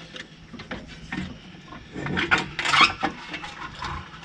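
An air filter element scraping and rubbing against the air cleaner housing as it is pushed and worked into place, with a few knocks. The scraping is loudest a little past halfway.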